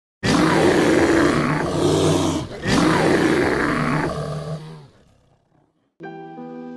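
Animal roar sound effect: two long, loud roars, the second starting about two and a half seconds in and fading out by about five seconds. Near the end, music with held chords begins, quieter.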